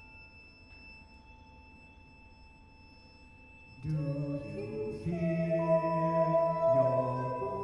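Contemporary chamber music: faint ringing tones hold for a few seconds. About four seconds in, a louder held chord of instruments and a singing voice enters, and the harmony shifts twice.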